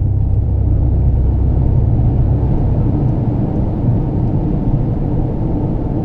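Deep bass from a car sound system played loud inside the cabin, a steady low rumble with no vocals during a break in a Brazilian funk song.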